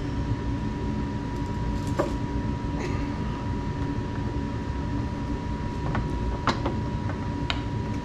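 A steady low rumble with a constant hum, and several short sharp clicks, most of them in the second half, as the plastic turn-signal bulb socket is twisted and pulled out of the headlight housing.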